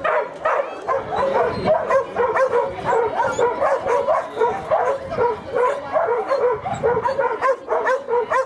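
A crowd of penned shelter dogs barking and yipping over one another, short calls overlapping several times a second.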